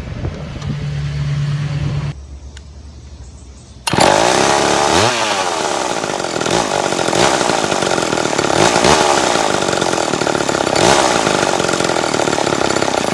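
Chainsaw bursting into loud running about four seconds in, its engine pitch rising and falling as it is revved, then cut off abruptly near the end. Before it, a steady low hum, then a quieter stretch.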